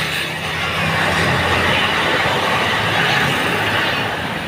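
A heavy road vehicle's engine running steadily under loud road and traffic noise. No horn is sounding.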